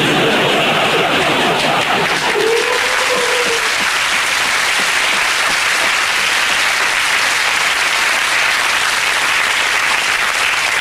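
Audience applause: dense, steady clapping at a high level, sustained throughout.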